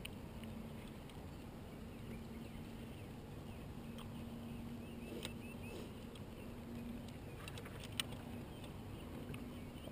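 Fishing reel being cranked to retrieve a spinner lure: a faint low gear hum in short stretches, with a couple of light clicks.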